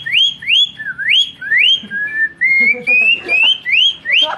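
A person whistling an imitation of a cucak ijo (greater green leafbird) song. Quick upward-sweeping whistled notes repeat about three times a second, with a run of shorter, flatter rising notes in the middle.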